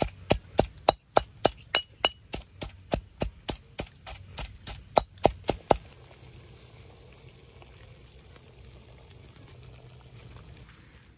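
Stone pestle pounding chillies and garlic in a stone mortar: a steady run of sharp knocks, about three and a half a second, that stops about six seconds in. After that comes a faint steady sound from a pot of water at a rolling boil over a wood fire.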